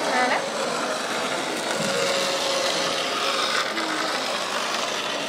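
Model railcar running along the layout's track: a steady rolling, grinding hum of its small motor and wheels on the rails.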